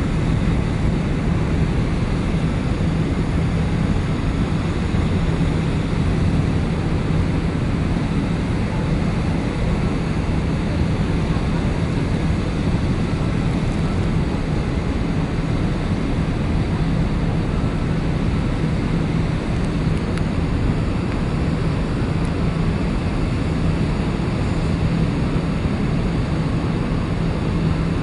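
Steady low drone of a large car ferry's engines while underway, a constant hum over an even rushing noise.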